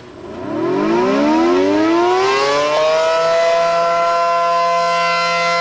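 Outdoor tornado warning siren winding up: its pitch rises for about three seconds, then holds a steady wailing tone.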